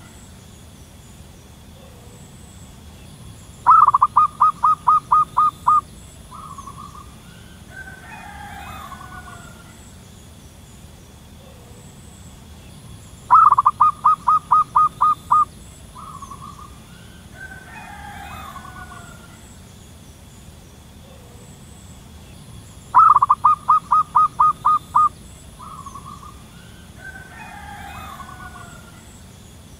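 Zebra dove calling: three times, about ten seconds apart, a quick run of staccato cooing notes, each run ending in a short softer note.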